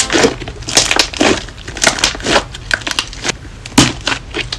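Fluffy homemade squishy putty made of clay and shaving foam being squeezed by hand, giving off loud, irregular crackling pops.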